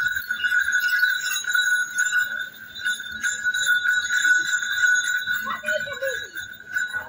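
Small bells on a calf's collar ringing steadily as the calf runs and jumps.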